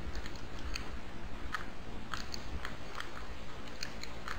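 Snow crunching in a run of irregular short crunches, a few a second, over a low rumble.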